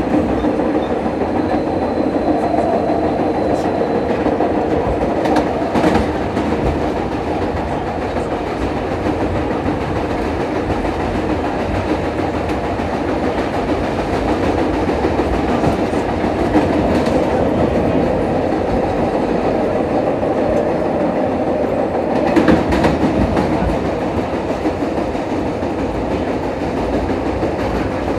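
Vintage New York City subway train running at speed, a steady rumble with wheels clicking over the rail joints and a few sharper clacks.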